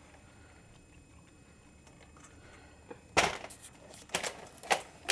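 Quiet room tone for about three seconds, then a quick run of sharp rustling and knocking handling noises close to the microphone as gloved hands reach in among the blankets.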